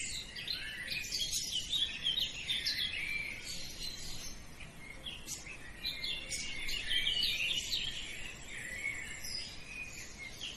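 Many small birds chirping together: a dense, continuous chorus of short, high chirps overlapping one another.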